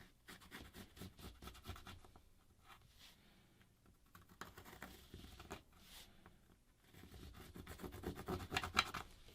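A repair tool scraping and scratching old residue off a Google Pixel phone's frame in short, irregular strokes, which grow busier and louder near the end.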